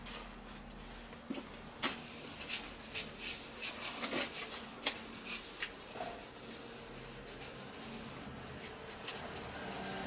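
A cloth being rubbed over a polished metal motorcycle front mudguard, in a run of quick wiping strokes that are busiest in the first half and lighter towards the end.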